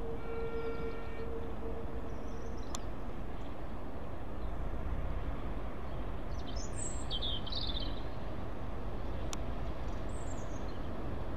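Class 08 diesel-electric shunter running slowly as it approaches, a steady low engine rumble, with a held whining tone that fades out in the first few seconds. Birds chirp in short bursts over it, and there are a few sharp clicks.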